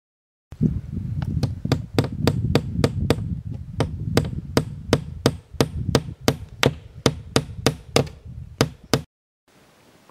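Hammer driving a long nail into a wooden panel, about three quick strikes a second over a low rumble, stopping suddenly near the end.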